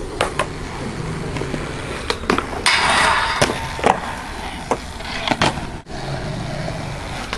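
Skateboard wheels rolling over rough concrete, louder for about a second near the middle, with a series of sharp clacks of the board hitting the ground.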